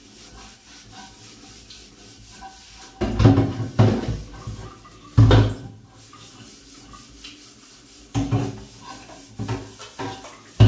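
Kitchen sponge scrubbing a nonstick pan by hand, a steady rubbing, with several louder knocks and scrapes as the pan is handled at the steel sink.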